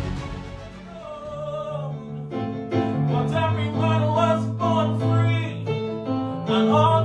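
Music: a voice singing long, wavering notes over piano-like chords and a bass line, coming in stronger about two seconds in.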